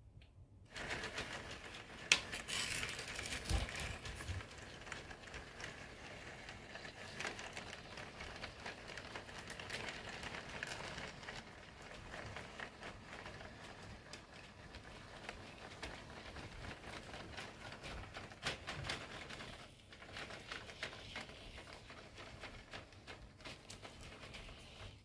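HO scale model train running past on the track: a steady rolling noise of the motor and wheels, full of small clicks and crackles, starting about a second in.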